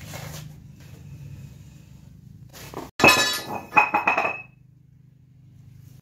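Loud metallic clanging and clattering as the metal electric-motor assembly is handled on the concrete floor: two sharp, ringing strikes about three and four seconds in, over a low steady hum.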